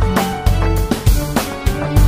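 Background music with a steady drum beat and pitched instrument notes.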